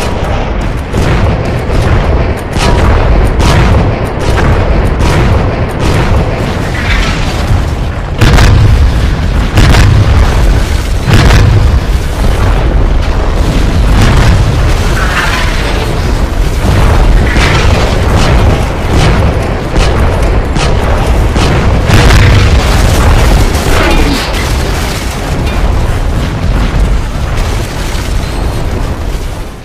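Loud, repeated explosion and cannon-fire booms, many in quick succession, laid over background music as a sound-effects soundtrack, with a few short swooping sounds in between.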